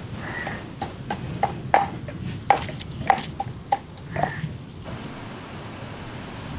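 Stone pestle pounding in a stone mortar: a run of sharp, irregular knocks with a short ring, about nine strikes, stopping about four and a half seconds in, then a steady low hiss.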